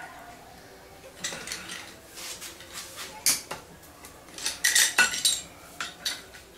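Steel pipe wrench gripping and twisting the red-hot jaws of forged flat-bar tongs against a steel anvil: clusters of metal-on-metal clinks and scrapes, loudest about five seconds in, as the jaws are bent into line.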